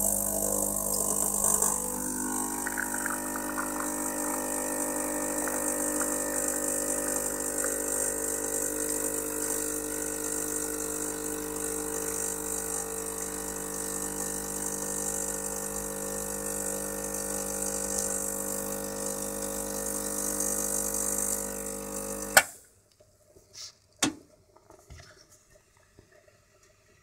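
Rancilio Silvia espresso machine's vibratory pump buzzing steadily under load as it pushes water through the coffee puck to pull an espresso shot. About 22 seconds in the pump cuts off with a sharp click, followed by a couple of light knocks.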